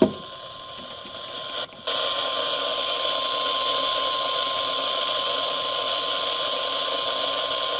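Radio receiver static: a steady hiss with a thin, steady whistle running through it. A few clicks come about a second in, and at about two seconds the static jumps louder and then holds level.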